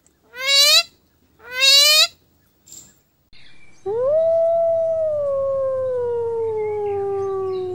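A dog howling: one long howl that rises at the start and then slowly falls in pitch over about four seconds, beginning about four seconds in. Before it come two short rising, warbling calls from another animal.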